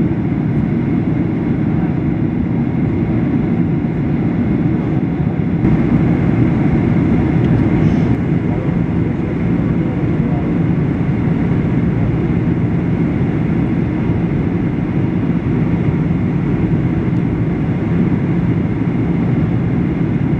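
Steady cabin noise of a Boeing 737-800 on descent, heard from inside beside its CFM56-7B engine: a dense low rumble of engine and airflow with a steady hum. The hiss grows a little louder about six seconds in.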